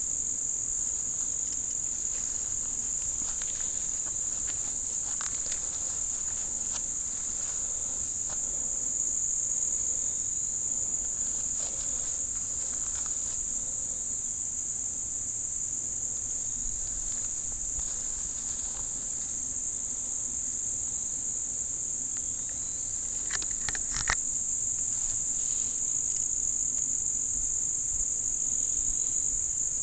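Steady, high-pitched insect chorus, an unbroken drone, with faint scattered ticks and a single sharp click about 24 seconds in.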